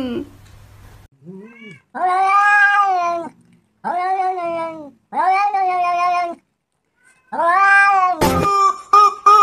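A cat meowing: a short rising chirp, then four drawn-out meows of about a second each with short pauses between. Near the end there is a sharp click, and a different, steadier call in quick repeated pulses starts.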